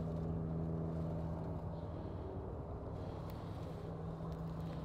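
Steady low hum of a running engine, holding one pitch throughout, with a couple of faint clicks in the second half.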